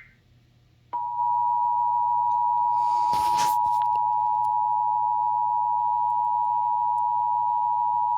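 Emergency Alert System attention signal: a steady two-tone beep just under 1 kHz that starts abruptly about a second in and holds unchanged, announcing an incoming alert.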